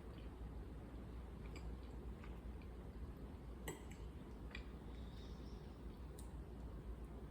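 Faint eating sounds: quiet chewing and scattered small clicks, with one sharper click about three and a half seconds in, over a steady low hum.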